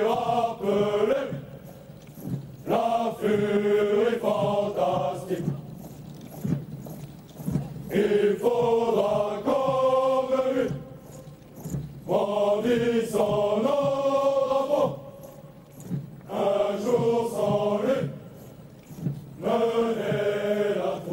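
A marching unit of soldiers singing a marching song in unison, many voices together, in phrases of a few seconds with short breaks between them.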